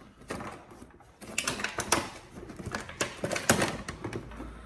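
Plastic clicking and rattling of foam darts being loaded into a toy blaster's plastic ammo belt, a quick run of sharp clicks starting about a second in.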